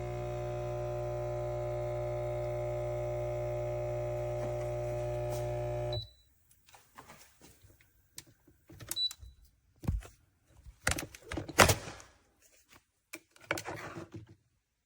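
KOTLIE multicapsule espresso machine running with a steady hum that cuts off abruptly about six seconds in. A short high beep follows, and another a few seconds later. Then come scattered clicks and knocks of the machine being handled.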